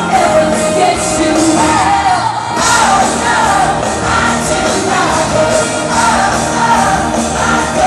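A woman singing lead with a live rock band of guitars and drums through the concert PA, heard from the audience.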